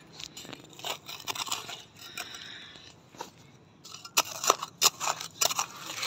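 A small hand blade scraping and jabbing into hard-packed earth to dig a small hole: gritty, crunching scrapes, with a quicker run of sharper strokes in the last two seconds.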